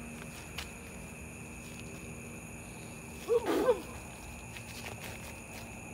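Night outdoor background with a faint steady insect trill. About three seconds in comes one short, loud wordless cry from a person's voice, its pitch bending up and down.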